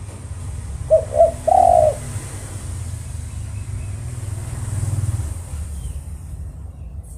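Spotted dove (tekukur) giving one three-note coo about a second in: two short notes and then a longer, drawn-out coo, over a steady low rumble.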